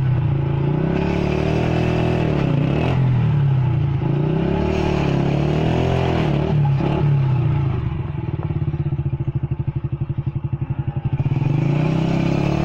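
Small motorcycle engine revving up and down several times. About eight seconds in it drops to a slow idle with separate firing pulses, then revs up again near the end.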